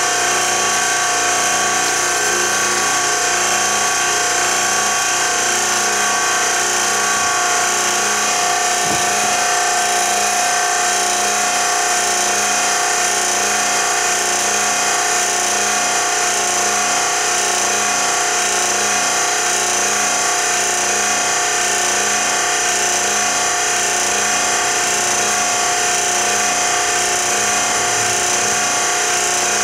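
A fluid pump runs steadily, pushing fuel oil used as flushing liquid through a fine filter and a hose into the engine's crankshaft journals and oil galleries. It makes a constant whine with a regular pulsing hum beneath it.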